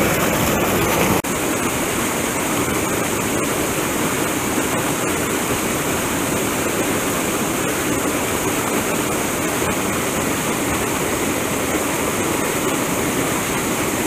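Steady rush of a small cascade pouring over rock into a pool on a mountain stream. The level drops a little about a second in, then holds even.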